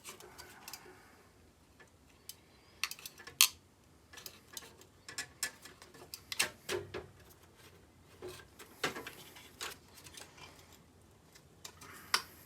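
Scattered small clicks and light metal clinks at an irregular pace: hands working the thermostat of an old window air conditioner to get it off its mounting.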